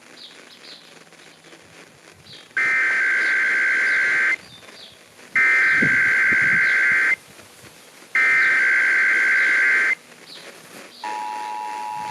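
Emergency Alert System SAME header, its digital data tones aired as three identical harsh bursts of about a second and a half, a second apart, starting about two and a half seconds in. About a second before the end, the steady two-tone EAS attention signal begins.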